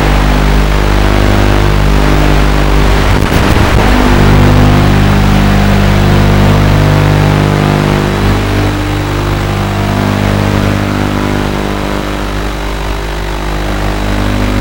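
Loud background music with sustained low chords that change every few seconds and a short noisy fill about three seconds in.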